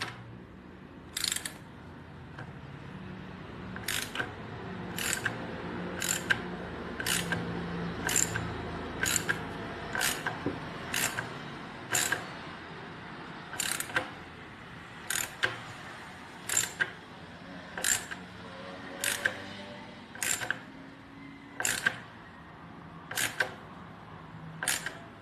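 Ratchet tool clicking in sharp strokes about once a second as a screw is tightened. Underneath, a dog makes low, drawn-out vocal sounds.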